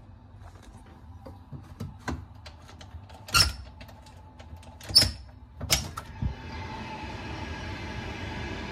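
Clatter and three loud knocks of a window's mesh insect screen being slid open, then, about two-thirds through, the steady rising rumble of a passenger train running past on the line.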